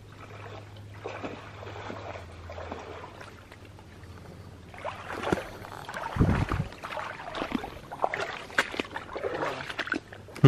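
Wading through shallow swamp water: sloshing, splashing steps with twigs and brush crackling past, growing louder in the second half, and a heavy low thump about six seconds in.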